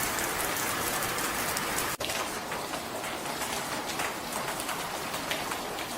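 Heavy rain: a steady, dense hiss with fine patter, broken by a brief dropout about two seconds in.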